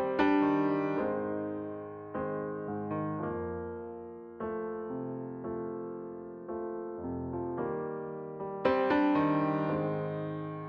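Background piano music: slow chords struck every second or so, each note fading away after it sounds.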